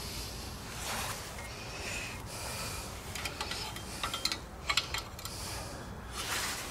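Small metal clicks and scraping from a Honda small engine's rocker arm being handled and worked at on its valve train. The clicks come in a cluster in the middle and again near the end, over a low steady rumble.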